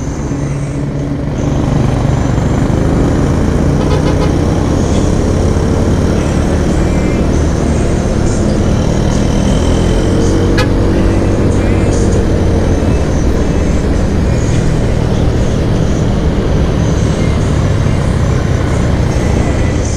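Onboard sound of a Honda Scoopy scooter under way in city traffic: wind rushing over the microphone on top of the small single-cylinder engine and the surrounding traffic, getting louder about two seconds in as the scooter picks up speed.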